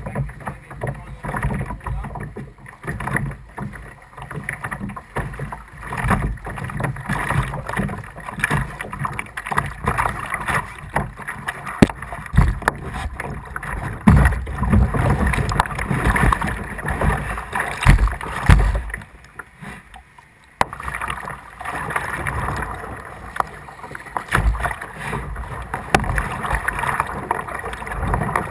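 Kayak paddling through floodwater: paddle blades dipping and splashing in irregular strokes, water sloshing against the hull, with occasional low thumps.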